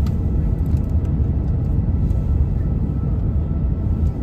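Steady low rumble of engine and airflow noise inside an Airbus A350's passenger cabin on approach, with a faint steady whine above it and a few light clicks.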